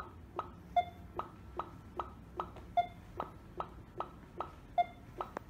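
Electronic ticks from an OKM EXP 6000 ground scanner during a scan, about two and a half a second, with every fifth tick louder and carrying a short beep.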